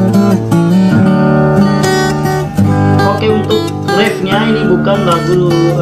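Steel-string acoustic guitar played fingerstyle: a melody picked over sustained bass notes.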